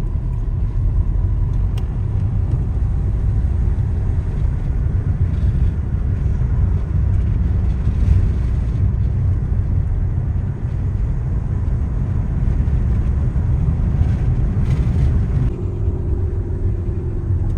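Steady road and engine rumble inside a moving car's cabin. A faint steady hum joins it near the end.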